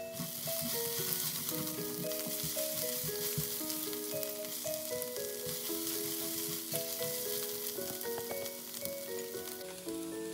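Chopped onion frying and sizzling in a skillet while a spatula stirs it; the sizzle cuts off near the end.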